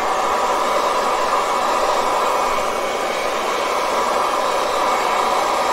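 InfinitiPro hair dryer running on its low setting with a nozzle attached, a steady rushing hiss of blown air.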